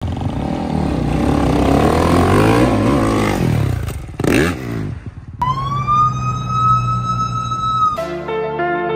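Dirt bike engines revving, the pitch rising and falling, with a quick burst of revs about four seconds in. Then a steady high tone holds for a couple of seconds, and music starts near the end.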